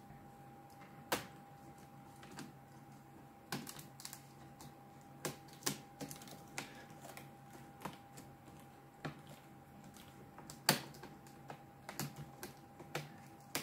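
Irregular plastic clicks and snaps as a replacement keyboard is pressed down by hand into an HP Pavilion 15 laptop's top case, its clips and keys clicking under the fingers as it seats, with a sharper snap about a second in and another near eleven seconds.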